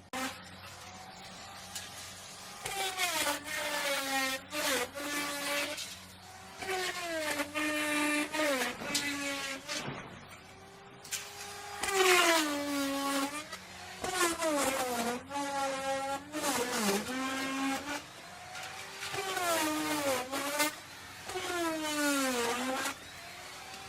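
Electric wood router motor running and cutting wood. Its pitch repeatedly dips as the bit loads up in the cut and rises again as it frees, with a steady low hum underneath.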